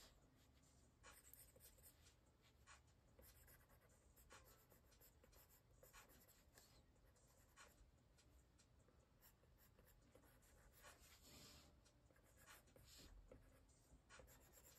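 Faint scratching of an Apple Pencil tip on an iPad screen in short, quick, irregular sketching strokes.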